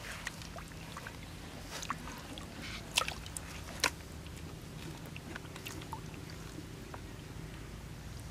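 Wet squelching of hands working in shallow mud and water, with scattered sharp little clicks, the loudest two about three and four seconds in, as snails are picked out and gathered into a plastic bucket.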